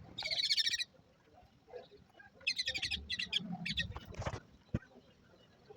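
Birds chirping in rapid, high trills: a short burst at the start and a longer broken run about two and a half seconds in, with a sharp click near the end.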